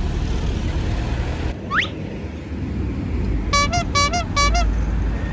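Low, steady engine rumble, with a quick rising whistle about a second and a half in, then four short toots of a multi-note telolet bus horn, their pitch bending, about three and a half seconds in.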